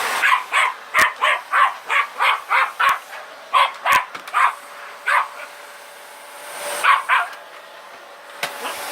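A dog barking in a quick excited run, about three barks a second for some five seconds, then two more barks after a short pause. A few sharp knocks sound among the barks.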